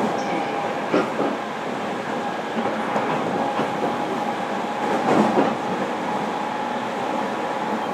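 Interior running noise of a JR Kyushu 305 series electric multiple unit, heard in a motor car while the train runs between stations. Wheel and rail noise goes on steadily under a faint steady whine, with a few louder knocks from the track about 1, 3 and 5 seconds in.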